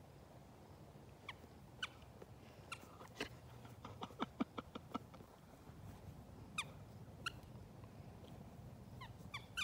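A dog chewing a squeaky ball toy: short scattered squeaks, with a quick run of squeaks and clicks about four to five seconds in.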